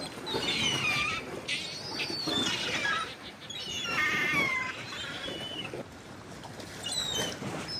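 Gulls calling over a fishing boat: a series of high, wavering cries, five or so within a few seconds, over the steady rush of wind and sea.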